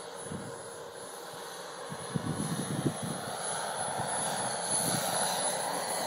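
Scale model Bell 412 helicopter with a PHT-2 model gas turbine flying past. Its steady turbine and rotor noise grows louder from about halfway through as it comes closer, and there are a few low thumps about a third of the way in.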